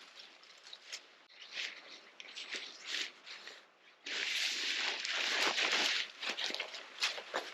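Camping gear being packed up by hand: irregular rustling and crinkling, with a longer, louder stretch of rustling about four seconds in.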